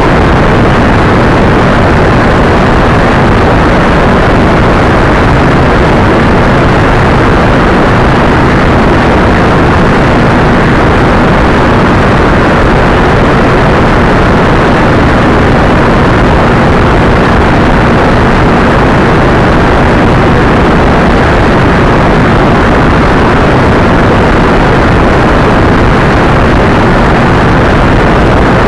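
Motorcycle cruising at highway speed: a loud, steady rush of wind and road noise on the bike-mounted camera's microphone, with a faint steady engine drone underneath.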